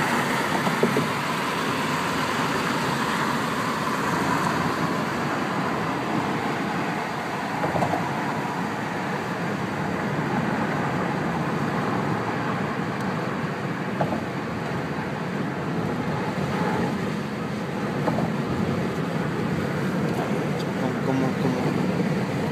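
Steady road and engine noise of a car driving at freeway speed, heard from inside the cabin.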